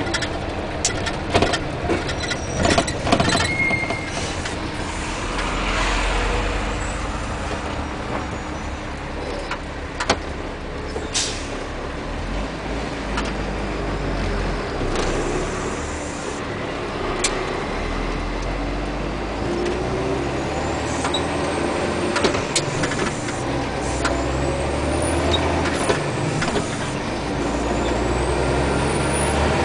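Inside the cab of a MAZ tanker truck on the move: the diesel engine runs steadily with road noise, and short clicks and knocks come from the cab now and then.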